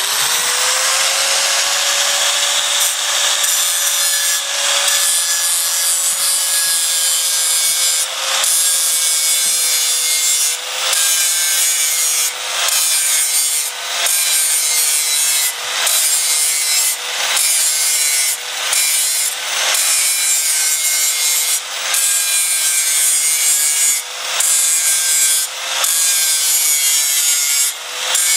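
Handheld angle grinder spinning up and then grinding down the welded joint of a steel band saw blade, the disc pressed on in short passes and lifted off briefly about every second over a steady motor whine. The thick weld is being ground flush to the blade's thickness.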